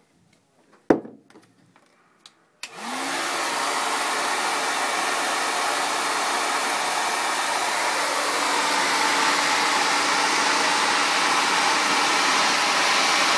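A hand-held hair dryer switches on about two and a half seconds in, its motor whine rising briefly as it spins up, then blows steadily. A sharp click comes about a second in.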